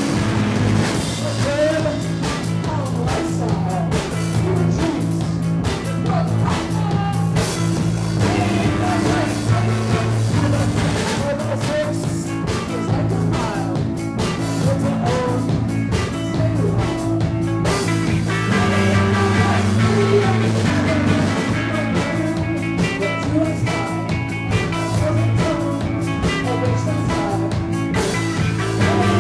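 A live rock band playing electric guitar and drums, with a voice singing over it.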